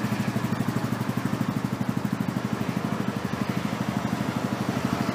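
Honda Forza X scooter's single-cylinder four-stroke engine idling through an aftermarket muffler, a steady even pulse of about ten beats a second.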